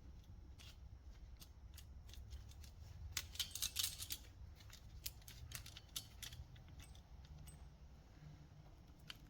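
Faint metallic clicking and clinking of chainsaw chain links being handled, with a denser, louder run of clicks about three to four seconds in.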